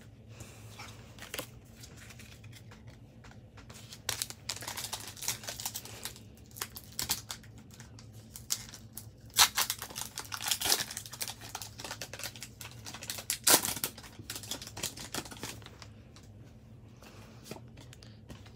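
Foil Pokémon booster pack being crinkled and torn open, with cards rustling as they are handled. The crinkling starts about four seconds in, is busiest in the middle with two loud crackles a few seconds apart, and dies down near the end.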